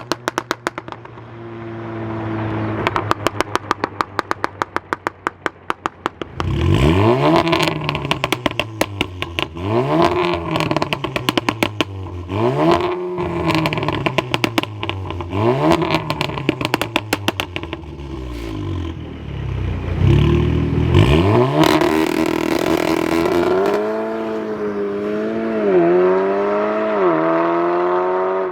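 Tuned Audi S3's 2.0-litre turbocharged four-cylinder with aftermarket downpipes and cat-back exhaust. It starts with a rapid run of exhaust pops, then accelerates hard through several gears: engine pitch rises and drops sharply at each quick upshift. Near the end it settles into a steadier, wavering drone.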